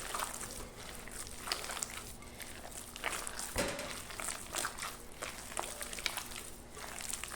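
Hands working a soft, sticky broa dough in a bowl, giving irregular squishes and sticky smacks.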